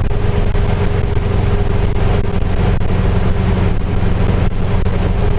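Split-screen VW bus driving at steady road speed, heard from inside the cab: its rear air-cooled flat-four engine running under load, mixed with road and wind noise, a steady low drone with a constant tone.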